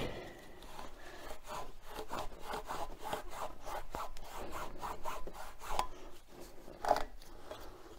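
Cloth rag being rubbed and scrubbed over the metal of a car's rear drum-brake hub and backing plate, in quick back-and-forth strokes about three or four a second, wiping off dirt. One louder scrape comes near the end.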